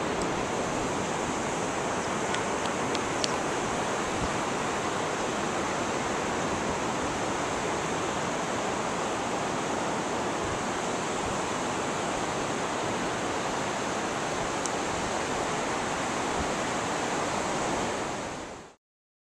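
Steady, even rush of sea surf mixed with wind on the beach, with no break, until it cuts off abruptly near the end.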